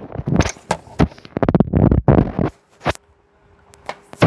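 Handling noise from a plastic toy playset: a run of clicks and scraping in the first two seconds or so, then quieter with a faint steady hum, and one sharp click near the end.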